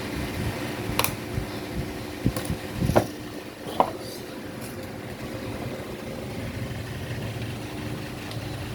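A few short, sharp clicks and knocks of metal tools at work on the amplifier's power transistors to take them out, the loudest about three seconds in. A steady low rumble runs underneath.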